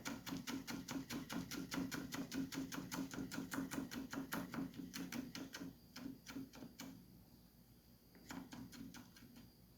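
Kitchen knife chopping fresh oregano on a cutting board: a fast, even run of knife strokes, about five or six a second, that stops about seven seconds in, followed by a short second run of chops near the end.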